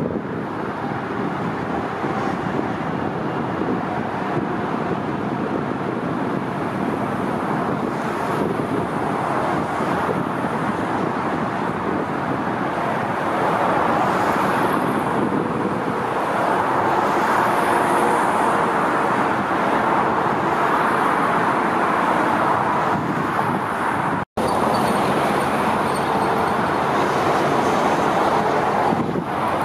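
Steady engine roar of aircraft and vehicle traffic, growing louder about halfway through, with a momentary dropout near the end.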